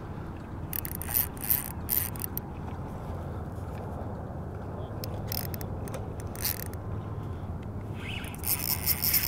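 Spinning reel's drag clicking out in short irregular spells as a hooked fish pulls line against it: once about a second in, again around the middle, and again near the end.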